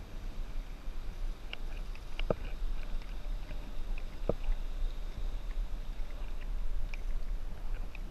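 Wind rumbling on the microphone outdoors, with scattered faint high chirps and two brief clicks about two and four seconds in.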